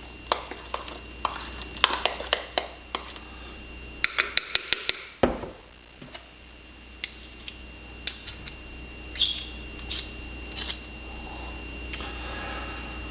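Spoon stirring thick cake batter in a mug, with irregular clinks and scrapes against the mug's sides, busy for the first few seconds and sparser after.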